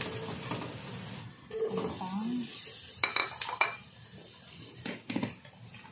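A spatula stirring potato cubes in a metal frying pan over sizzling oil, scraping the pan, with a few sharp knocks of the spatula against the pan about halfway through and near the end.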